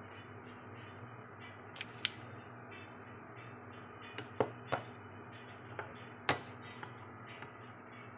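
A few light clicks and knocks from a plastic jug and a china plate being picked up and handled on a kitchen counter, over a steady low hum.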